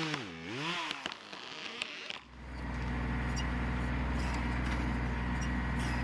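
A chainsaw revving, its pitch dipping and rising, cut off after about two seconds by the steady running of a Kubota L3010 tractor's diesel engine working its backhoe.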